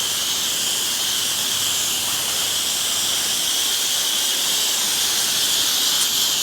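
Pressure-washer wand spraying house-wash soap in a steady, loud hiss, with a faint low machine hum beneath it during the first couple of seconds.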